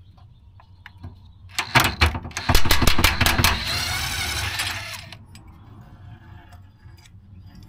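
Craftsman cordless impact gun hammering a rusted 10 mm nut loose from the spare tire carrier mount: rapid clattering impacts starting about a second and a half in, running into a steady buzz as the nut spins off, stopping about five seconds in.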